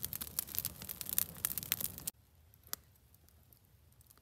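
Campfire of wet leaves catching, crackling with dense rapid pops; the crackle cuts off abruptly about halfway through, leaving a quiet background with a single faint pop.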